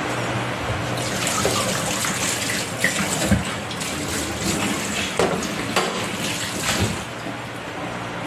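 A steady rushing noise like running water with a low hum under it, and a few short knocks and clinks.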